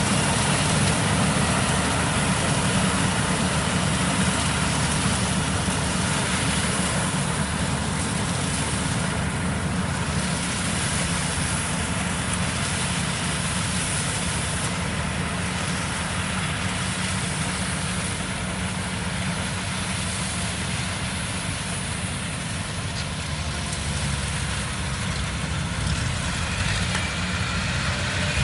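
Kubota rice combine harvester running steadily while harvesting: a constant, even machine noise from its diesel engine and threshing works, heaviest in the low end.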